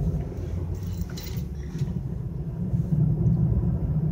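Steady low rumble of a car's engine and tyre road noise, heard from inside the cabin while driving.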